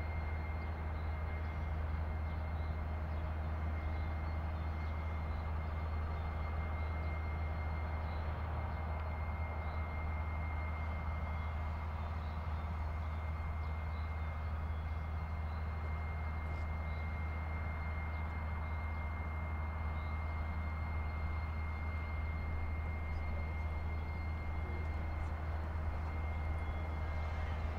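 A steady low rumbling drone, very even in level, with a thin high whine held over it.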